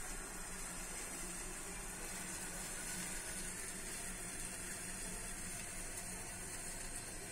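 Steady hiss with a faint low hum and no distinct events: kitchen room tone.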